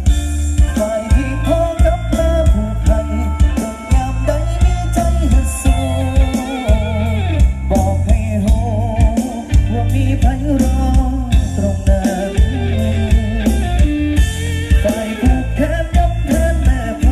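Live rock band music played loud through a big PA sound system and picked up by a camera microphone: heavy bass, drum kit, electric guitar and a wavering melody line, with no break.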